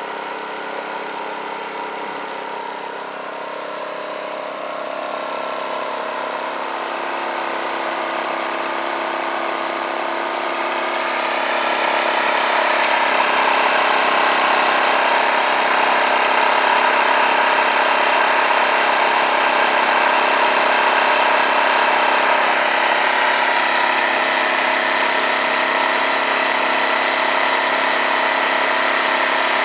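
Predator 2500-watt inverter generator's small engine running steadily, its speed and loudness climbing over several seconds about a third of the way in, then holding at the higher speed.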